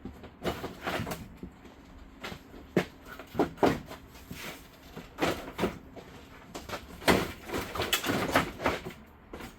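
Plastic front bumper cover of a 2009 Nissan Altima being pulled off the car: a string of irregular knocks, snaps and clatters as its retaining clips let go and the cover is handled.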